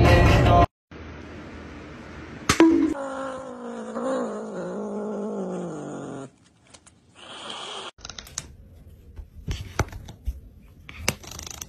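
A tabby cat holding food in its mouth gives one long, wavering call lasting about three seconds that slowly falls in pitch, just after a sharp click. Brief music plays at the very start, and scattered clicks and scratches follow the call.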